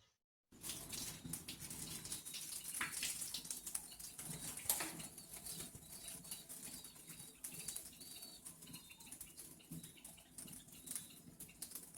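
Hands being rubbed together during handwashing: a quiet, irregular rustle with many small clicks.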